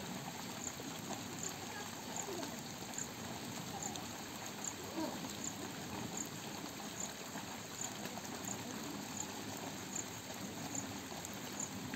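Steady sloshing and trickling of water in a flooded paddy field being ploughed by cattle, with a faint high tick repeating about twice a second.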